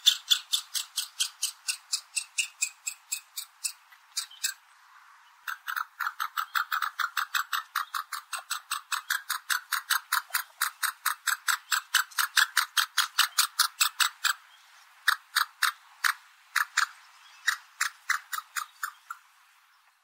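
Reeves's pheasant calling: a rapid run of short, sharp notes, about four to five a second. It pauses briefly about four seconds in, then continues steadily before thinning to scattered single notes near the end.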